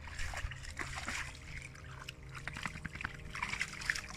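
Water splashing and sloshing as a dog wades and noses about in a muddy puddle, in short irregular splashes.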